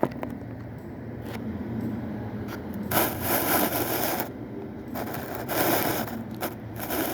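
Gear-lever parts being handled on a workbench: scraping and rubbing, with a few sharp clicks and two longer scraping stretches about three and five seconds in.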